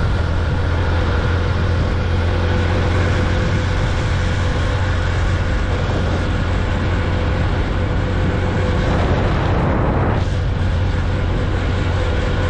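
Motorcycle engine running steadily at cruising speed, with wind rushing over the handlebar-mounted microphone. A brief swell of rushing noise comes about nine seconds in and cuts off a second later.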